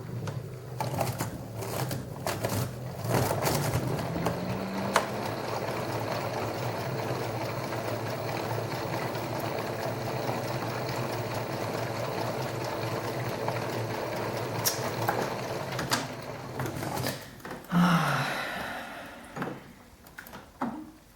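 LG washing machine spinning with an unbalanced load: a steady, dense mechanical rattle over the motor's hum. The hum rises in pitch a few seconds in, and there are a few sharp knocks early on. Near the end the pitch falls and the sound dies down.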